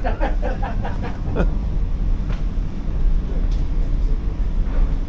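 Steady low rumble of a ferry's engines heard on its vehicle deck, with a few faint knocks over it.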